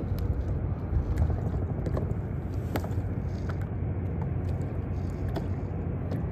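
Open-water ambience around a plastic kayak: a steady low rumble with small waves lapping the hull and a few scattered light ticks.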